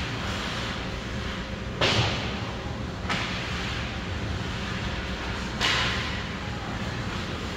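Ice hockey play on the rink: a steady scrape and hiss of skates on ice, broken by three sharp cracks of stick, puck or boards, about two seconds in, just after three seconds, and a loud one around five and a half seconds.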